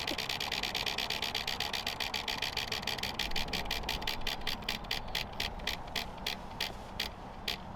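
Prize wheel spinning, its pointer clicking over the pegs: rapid clicks that slow steadily and space out as the wheel coasts down.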